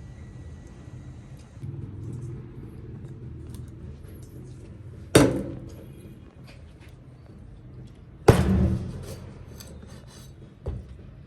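Two loud knocks of hard objects, each with a brief ring-out, about five and eight seconds in, then a lighter knock near the end, over a low steady rumble.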